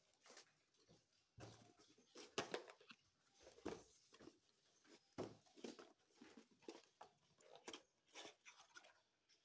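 Faint, irregular rustling and scraping of a cardboard tablet box being handled: the seal is peeled, the lid lifted and the inner tray slid out.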